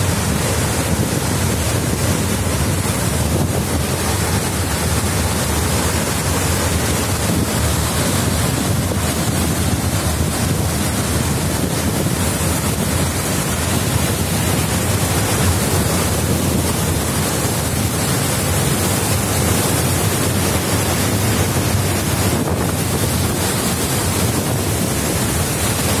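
Mountain waterfall pouring onto rocks close by: a loud, steady rush of falling water.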